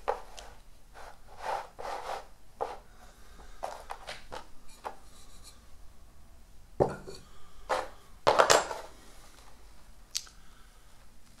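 Hands working a jade plant's root ball apart and handling loose potting soil on a plastic tub lid: irregular rustling, crumbling and scraping, with a few sharper, louder scrapes about three-quarters of the way through.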